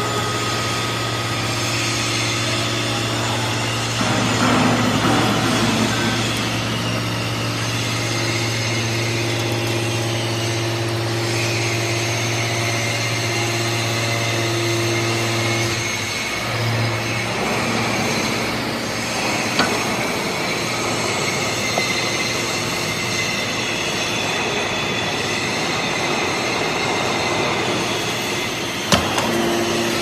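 Hydraulic power pack of a TCM-MC160 scrap metal baler running: a steady motor hum under a pump whine whose pitch and strength shift several times as the rams compress and push out a bale of scrap cans. It gets louder and rougher for a couple of seconds about four seconds in, and there is a sharp knock near the end.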